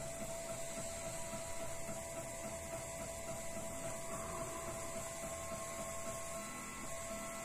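Hobby CNC diode laser engraver running as it burns into a slice of sausage: a steady electric hum with thin whining tones that shift about halfway through.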